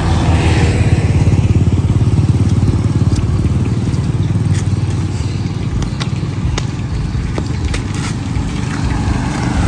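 A steady low rumble, with a motorcycle passing in the first second or so and another vehicle passing near the end, and a few sharp clinks of a metal spatula against a wok.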